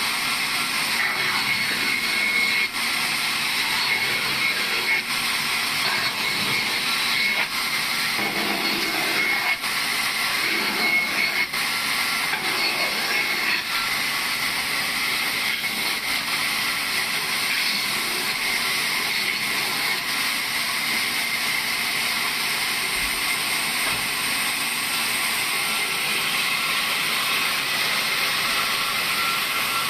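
Sawmill saw running steadily while cutting wood, with a few short knocks from the wood and machine.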